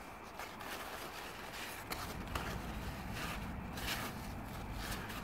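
Pumpkin leaves and vines rustling as a gloved hand moves them aside, with a few soft clicks and scrapes.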